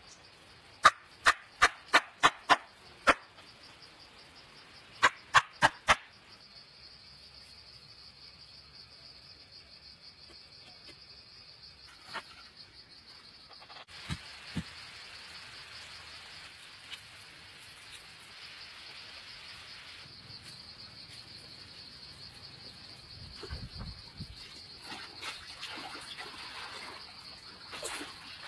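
A quick run of sharp knocks in the first few seconds, about six close together and four more around five seconds in. After that comes a steady high-pitched insect drone, with a few scattered knocks and rustles later on.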